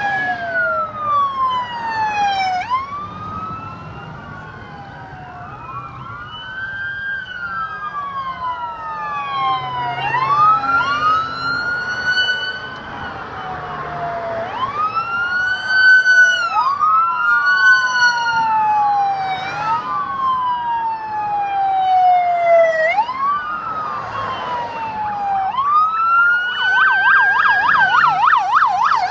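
Sirens of emergency vehicles driving past in procession, several wailing at once with slow rising and falling pitch sweeps that overlap. Near the end one siren switches to a fast yelp.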